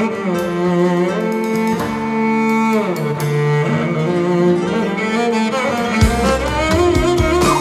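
Cello playing a slow, sliding melody with kanun and keyboard accompaniment. A low bass line comes in about six seconds in.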